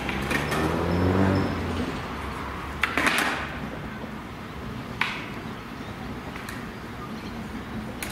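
X'trapolis electric train pulling away, its traction motors whining upward in pitch over the first two seconds, then a steady rumble with a few sharp clanks, the loudest about three seconds in.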